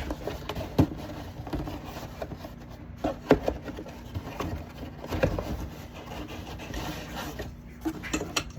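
Hands handling unboxed metal detector parts: scattered light knocks, with rubbing and rustling between.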